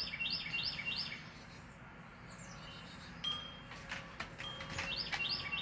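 A bird calling in the background: a quick run of about four short, high, rising-and-falling notes at the start, repeated near the end, with a few faint clicks between.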